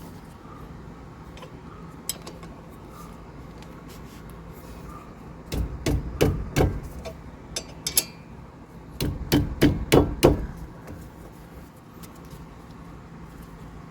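Sharp knocks of hand-tool work on a car, in two clusters a few seconds apart, each a quick run of several strikes, over a low steady hum.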